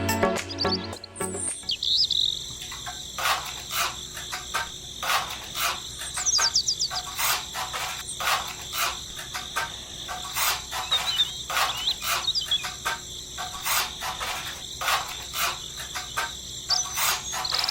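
Crickets chirring steadily, with many irregular small clicks and taps throughout and a few short bird chirps. Music fades out in the first second or so.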